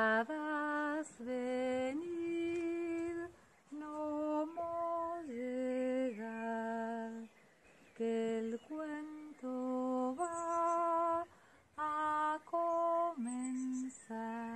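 A woman singing a slow, simple melody of held notes in a low-to-middle range, the opening phrase coming round again about halfway through.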